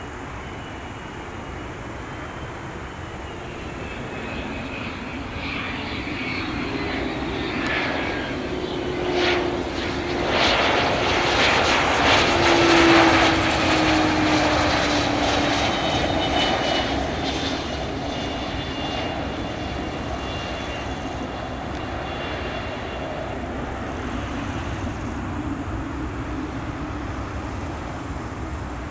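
Cessna 680A Citation Latitude business jet's twin turbofans passing on arrival. The engine whine swells to its loudest about halfway through, falls in pitch as the jet goes by, then fades away.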